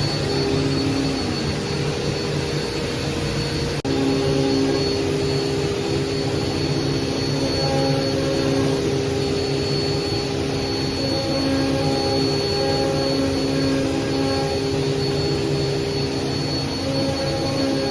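CNC router spindle running steadily while engraving text into a walnut box lid, with a whine and motor tones that shift and come and go as the machine moves. The sound drops out briefly nearly four seconds in.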